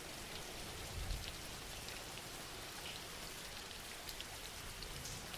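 Soft, steady rain, with light drops pattering on a surface.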